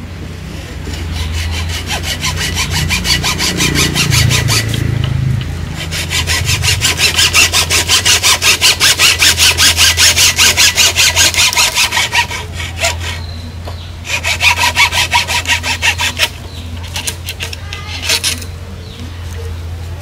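Wood being sawn by hand in quick, even back-and-forth strokes, about four or five a second. There is a long run of strokes through the middle, then a shorter run, with rougher scraping between them.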